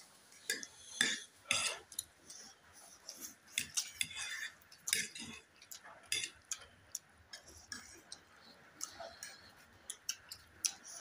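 Metal forks clinking and scraping against ceramic plates while two people eat instant noodles, with irregular short clicks and bursts of noodle slurping throughout.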